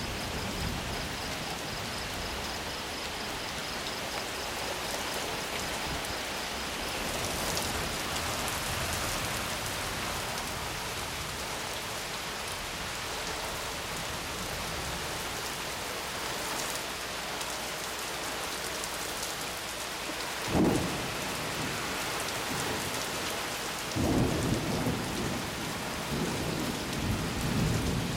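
Steady rain from a thunderstorm, with one sudden sharp clap of thunder about two-thirds of the way through and rolling thunder rumbling over the last few seconds.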